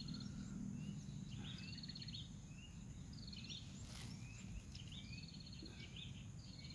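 A small songbird repeating a short phrase about every one and a half seconds, each phrase a rapid high trill with a few quick chirps, over a steady low background rumble. A single faint click sounds about four seconds in.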